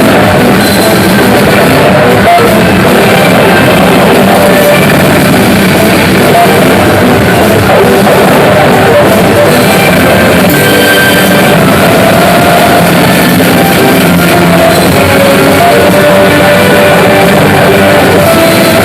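Pachislot machine's rock soundtrack with guitar and drums, playing loud and unbroken.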